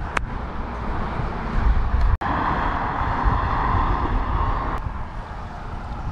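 Steady outdoor noise with a low, uneven rumble, like traffic or wind, broken by a brief sharp dropout about two seconds in.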